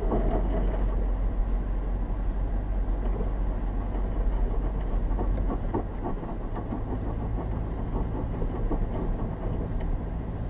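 Car driving at about 55 km/h on a snow-covered road, heard from inside the cabin: a steady low rumble of tyres and engine with many small clicks and crunches from the tyres rolling over packed snow. The rumble eases a little about halfway through.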